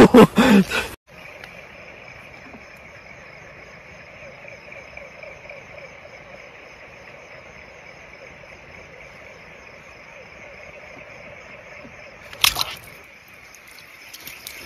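Water splashing loudly for about the first second as a fish is handled in shallow water, then a cut to faint outdoor ambience: a steady high insect trill over a quiet hiss. A brief louder noise comes near the end.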